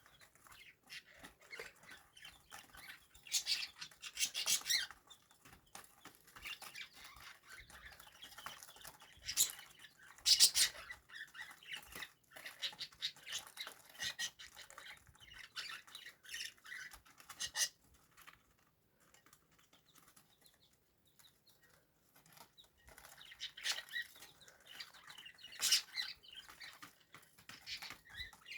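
Pet budgie chirping and scratching or rustling, with short bursts of louder chatter and a quieter lull in the middle.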